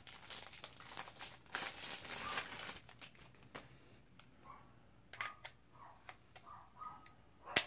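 Plastic bag crinkling as a handheld radio's battery pack is unwrapped. Then come scattered plastic clicks as the battery is fitted to the Baofeng UV-5R, with a sharp snap near the end.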